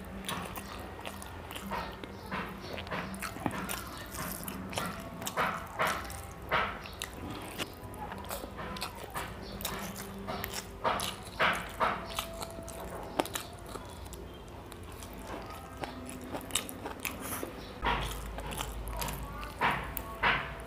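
Close-miked eating sounds of chicken leg curry and rice eaten by hand: bites into the drumstick and chewing, heard as a string of short smacks and clicks.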